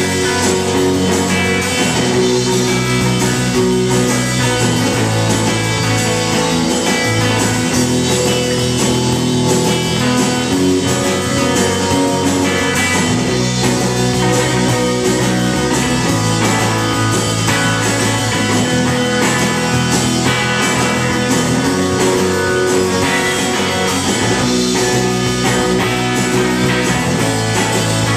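Loud live rock band playing: drum kit with cymbals, bass guitar and guitar, at a steady level.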